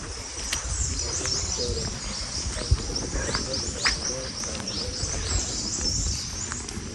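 Many small birds chirping at once, a dense chatter of quick, high, down-slurred notes, over a low rumble, with one sharp thump a little under three seconds in.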